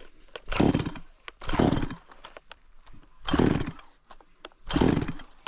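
A STIHL MS 194 TC two-stroke top-handle chainsaw pull-started four times, each pull a short burst of cranking about one to one and a half seconds apart. The engine does not catch and run.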